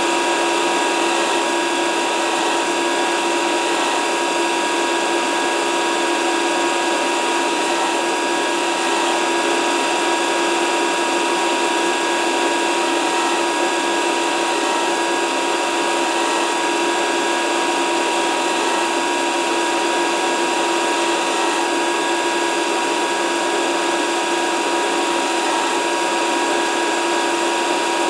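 Grinding machine running steadily with an even, unchanging whine, its wheel grinding metal.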